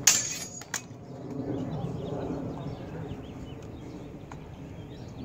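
Longsword blades clashing in sparring: a sharp clang with a short ringing tail, then a second, lighter clash under a second later.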